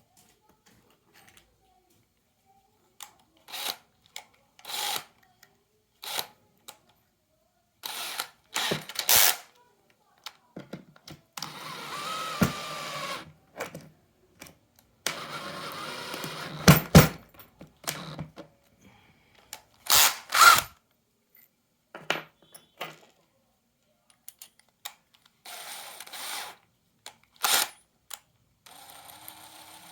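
Cordless drill run in two short bursts of about two seconds each, with scattered clicks and knocks of handling the tool and workpiece between them.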